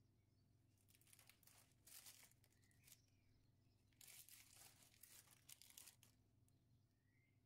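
Faint crinkling and tearing of thin plastic film as individually wrapped processed cheese slices are peeled out of their wrappers. It comes in two bursts of rustling, about a second in and again about four seconds in.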